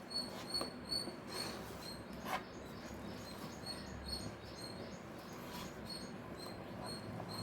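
A spoon scraping and knocking in a pan as thick rava halwa is stirred, a few strokes spread out. Behind it, short high chirps repeat over and over.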